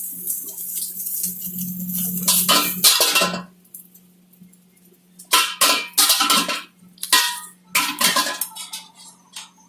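Metal kitchenware clattering in several short bursts, over a steady low hum.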